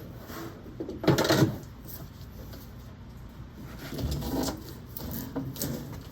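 Handling clatter of tools and parts being worked inside a washer cabinet: a loud knocking rattle about a second in and a smaller one around four seconds in.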